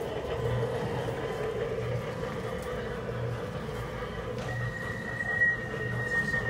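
1970 coin-operated kiddie train ride running, its motor and rocking drive giving a low pulse about every second and a half. A thin high tone sounds briefly in the second half.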